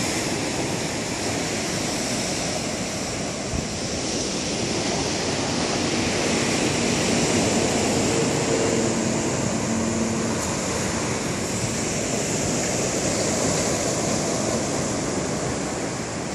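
Sea surf breaking on a pebble beach, a steady rushing wash that swells and eases gently.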